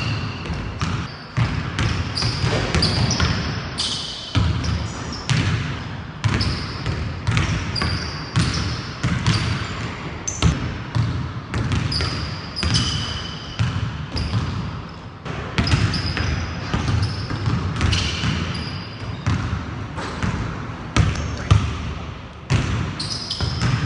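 Basketball bounced hard and repeatedly on a hardwood court, with short high squeaks of sneakers cutting on the floor between the bounces.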